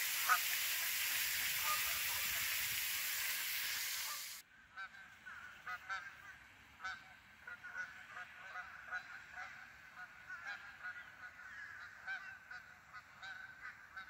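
A steady hiss that cuts off about four seconds in, then a flock of Canada geese honking over and over, many short calls overlapping.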